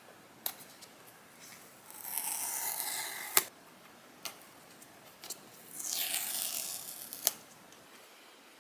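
Apple Watch paper packaging being handled: two rustling, sliding strokes, each about a second and a half long and each ending in a sharp click, with a few light taps between them.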